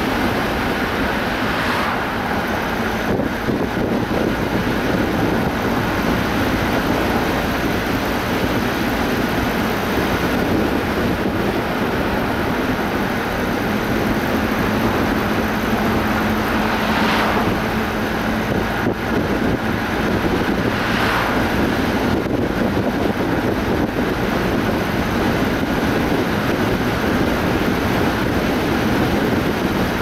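Car driving along a road: steady road and wind noise, with a few brief swells in the rush.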